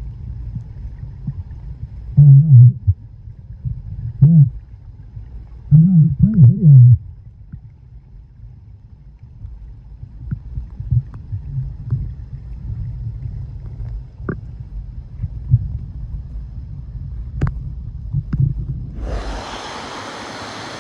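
Underwater sound of a waterfall plunge pool: a steady low rumble of the falling water, with several loud wavering bubbling bursts in the first seven seconds and a few sharp clicks later. Near the end a steady, much brighter hiss of falling water suddenly takes over.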